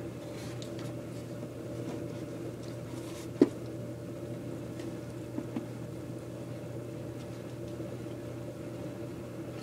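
A steady low mechanical hum, like a running household appliance, with one sharp knock about three and a half seconds in and two light taps about two seconds later, from kittens scrambling over a hard container.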